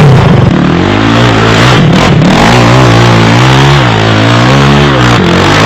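ATV (quad) engine running loudly and being revved, its pitch rising and falling repeatedly.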